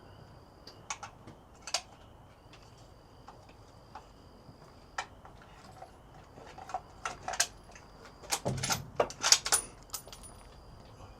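Scattered small clicks, taps and rattles of gear being handled at a shooting bench, sparse at first and busier in the last few seconds, with a soft knock among them.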